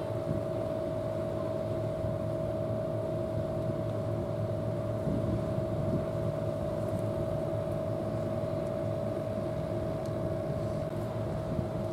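Steady machine drone: a constant mid-pitched hum over a low rumble, unchanging throughout.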